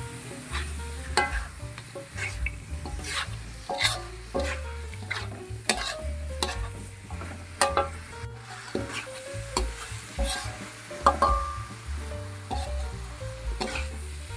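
A metal spoon stirring diced potato, chicken liver and gizzard in chilli sambal around a wok, with frequent irregular clicks and scrapes of metal on the pan over the sizzle of frying. A few strikes ring briefly.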